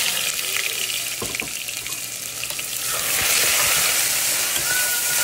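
Freshly added onion, green chilli, ginger and garlic paste sizzling loudly in hot oil in a pressure cooker, stirred with a steel ladle that knocks against the pot a couple of times about a second in. The sizzle grows louder about three seconds in as the paste is fried toward golden brown for the tadka.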